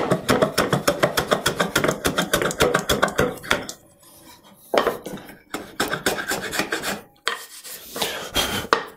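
Hand plane shaving oak in quick, short strokes, with a couple of brief pauses, planing the end of the wedged drawer pull flush and smooth.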